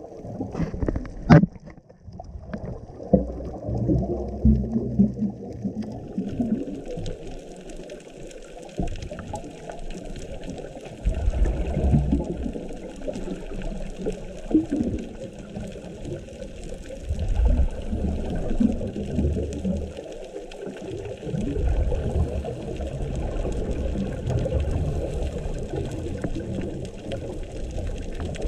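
Muffled underwater rumble picked up by an action camera in a waterproof housing, with a scuba diver's regulator breathing and exhaled bubbles gurgling in surges every few seconds. Two sharp clicks about a second in.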